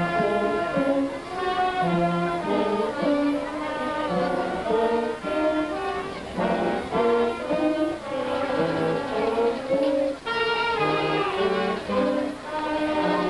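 Slow instrumental procession music: a melody of held notes, one note after another, with no break.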